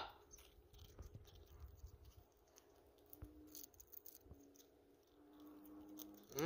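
Near silence with faint small clicks and scratches: a green-winged macaw's beak nibbling a cracker held in its foot.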